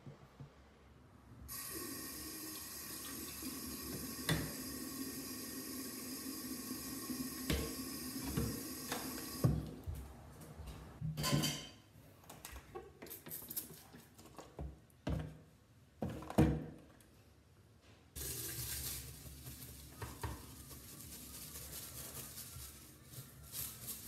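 Water from a bathroom tap running into a ceramic sink basin for about eight seconds, then a series of knocks and clatter at the sink. Near the end a steady rush of water and scrubbing comes in as the basin is cleaned by hand.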